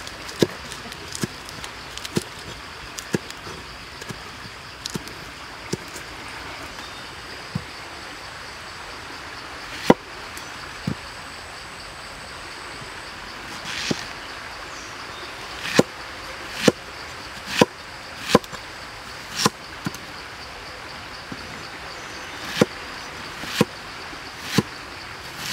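A knife chopping vegetables on a wooden cutting board: single sharp chops at irregular intervals, coming in runs of about one a second with a gap in the middle, over a steady background hiss.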